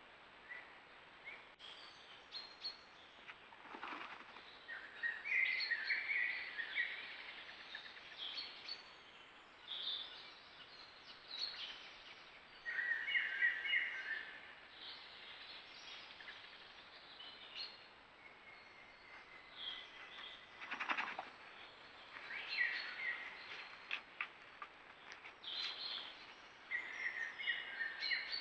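Forest songbirds singing short repeated phrases every few seconds, over a wolf digging out a burrow den, heard as brief bursts of scraping earth, the plainest about 4 and 21 seconds in.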